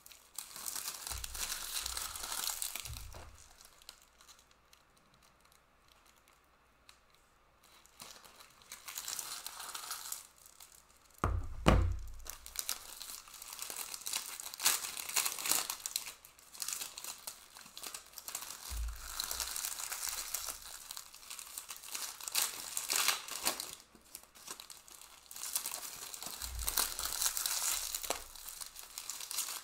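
Panini Prizm trading card pack wrappers crinkling and tearing open as the packs are ripped by hand, with cards handled in between. A few dull thumps, the loudest before the middle, from packs and card stacks set down on the table.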